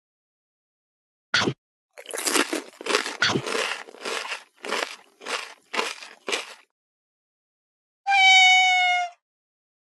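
Crispy fried chicken being chewed: a click, then a run of about nine loud crunches over some four seconds. Near the end comes one held, slightly falling pitched cry lasting about a second.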